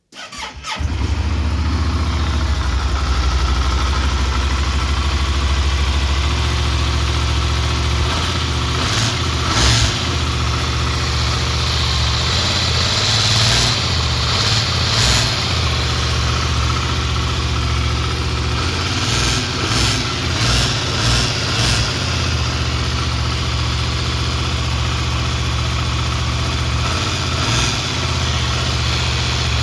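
Yamaha TDM 900 parallel-twin engine starting and settling into a steady idle, with a few brief louder stretches partway through. The owner considers the noise it makes abnormal.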